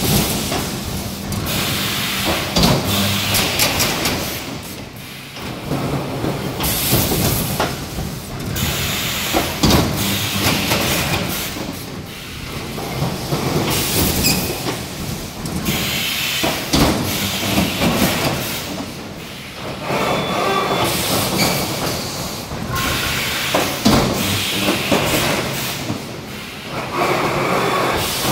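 3D EPS foam-panel wire-mesh welding machine running through its cycles: bursts of compressed-air hiss and sharp metallic clacks from the pneumatic cylinders and welding heads, over a steady low hum. The noise swells and eases in a repeating cycle of roughly six to seven seconds.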